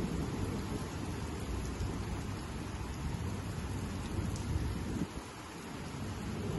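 Heavy rain pouring onto a flat concrete rooftop as a steady hiss, with low thunder rumbling underneath that eases about five seconds in.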